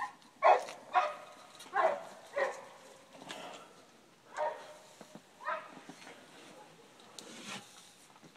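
A dog barking: a string of about eight short, separate barks at uneven intervals.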